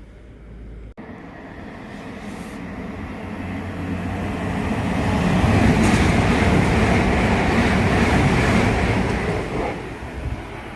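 A train passing on the main line. Its running noise builds for about five seconds, stays loud for a few seconds, then drops away quickly near the end.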